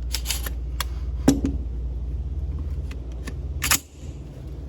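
Metallic clicks and clacks of an AR-15 being loaded: a magazine seated and the Breek Arms Sledgehammer charging handle racked, with the sharpest clack, the bolt going home, near the end. A steady low hum runs underneath.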